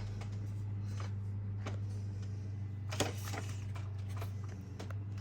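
A steady low hum with a few light clicks and knocks.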